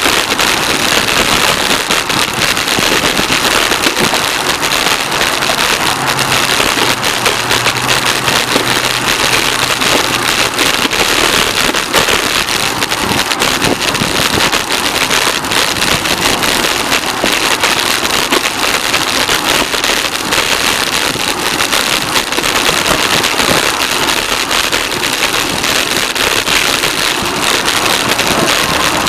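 Steady rushing wind and tyre noise from riding a bicycle, with a dense crackle running through it. A faint low hum passes between about six and ten seconds in.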